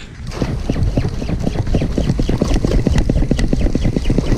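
Spinning reel being cranked fast while jigging: a rapid, even rattle of about eight to ten ticks a second that starts a moment in, over a low rumble of wind and boat.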